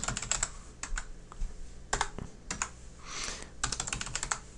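Computer keyboard typing: short runs of quick keystrokes with pauses between them, the fastest run a little before the end.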